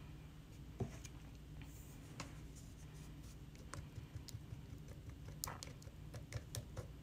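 Silicone spatula scraping and pressing clumpy ceramic glaze through a fine stainless mesh strainer to break up lumps: faint scratchy strokes, a single knock about a second in, then a run of quick small clicks as the spatula works against the mesh in the second half.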